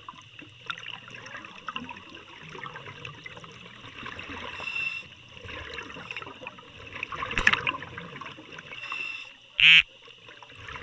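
Muffled underwater gurgling and bubbling, heard from below a boat's hull. There is a sharp knock about seven and a half seconds in, and shortly before the end a brief, loud buzzing burst.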